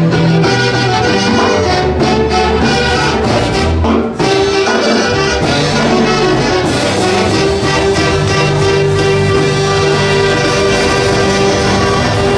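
Live Peruvian folk orchestra playing a santiago tune, with wind instruments carrying held melody notes over a steady bass. The music dips briefly about four seconds in.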